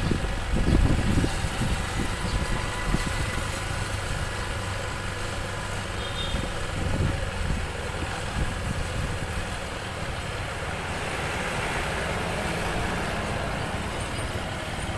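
A motor vehicle engine running steadily at low speed, with road noise. The low rumble is heavier in the first second or so.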